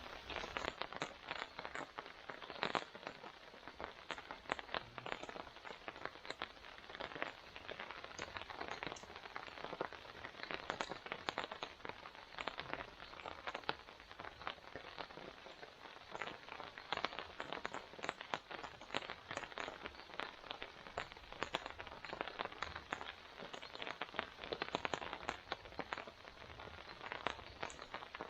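Rain pattering steadily, a dense run of small irregular drop ticks with no let-up.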